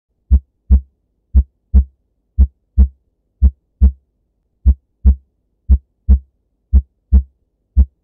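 Human heartbeat in a steady lub-dub rhythm, about one beat a second, each beat a pair of short, deep thumps about half a second apart. The first sound (lub) is the closing of the tricuspid and bicuspid valves, and the second (dub) is the closing of the semilunar valves.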